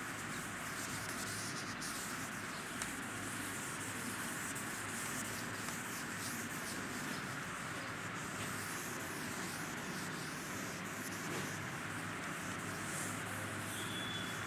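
A board duster wiping chalk off a blackboard: soft rubbing over a steady background hiss.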